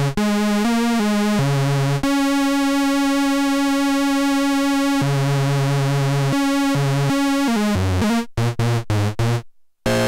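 Home-built Ad-vantage 03 analog synthesizer playing a buzzy line of low notes, its VCO 3 pulse wave pulse-width modulated by VCO 2's square wave. The notes alternate between a few pitches, one is held for about three seconds, and near the end they turn short and choppy with a brief break.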